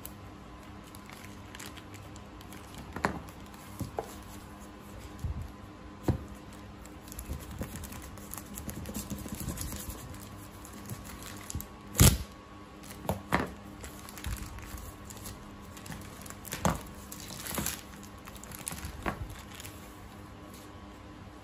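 Thin plastic shipping mailer being handled, slit with a folding pocket knife and torn open: crinkling and tearing plastic with scattered sharp knocks, the loudest about twelve seconds in, over a faint steady hum.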